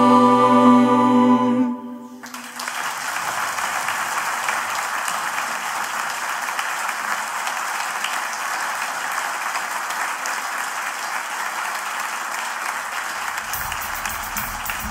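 An a cappella choir holding its final chord, which cuts off about two seconds in, followed by a large audience applauding steadily. Low thumps start under the applause near the end.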